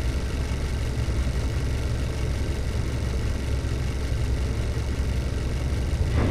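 Deep, steady rumbling drone of a cinematic logo sound effect, swelling slightly near the end.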